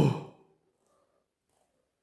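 A man's drawn-out 'oh' trailing off into a breathy sigh, then near silence.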